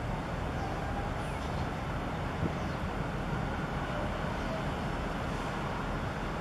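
Steady low outdoor rumble of harbourside ambience with no single clear source, and faint high chirps now and then.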